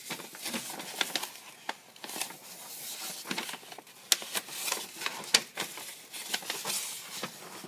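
A sheet of paper being unfolded and handled, rustling and crinkling with many small crackles and two louder snaps a little after the middle.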